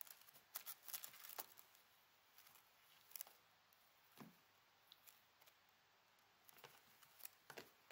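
Faint scratching and rustling in scattered clusters as a kitten bats at a dry grass stem, its claws catching the stem and the foam mat. It is busiest in the first second and a half and again near the end.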